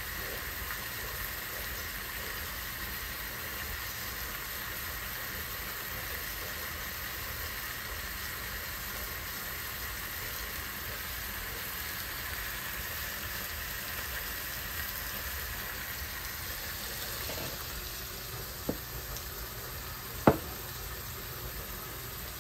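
Boneless tilapia fillets frying in butter in a pan, with a steady sizzle. Two sharp clicks come near the end, the second louder.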